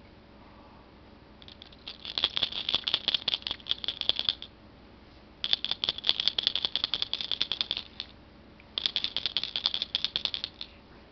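Baby's toy rattle shaken in three bursts of rapid rattling, each two to three seconds long, with short pauses between.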